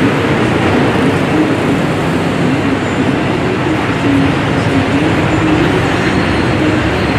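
Loud, steady street traffic noise with a low wavering engine hum underneath.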